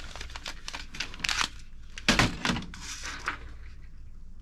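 Plastic toy guns clattering and knocking against each other as they are handled and moved about in a cardboard box. The knocks are irregular, with a louder cluster about two seconds in.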